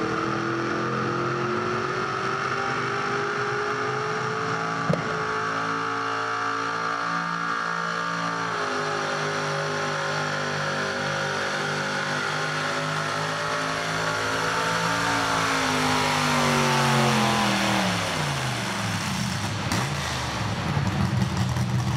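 Mini two-wheel-drive pulling truck's engine at high revs under full load, dragging a weight sled. Its pitch climbs slowly and dips briefly about eight seconds in. From about fifteen seconds it falls away as the truck slows to a stop, then runs steadier and lower near the end.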